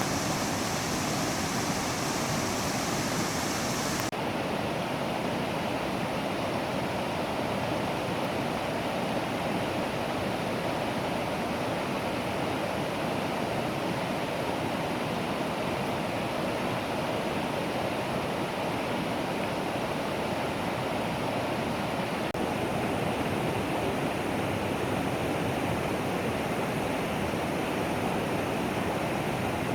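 Mountain valley stream rushing steadily over rocks. About four seconds in the sound changes abruptly, the highest hiss dropping away.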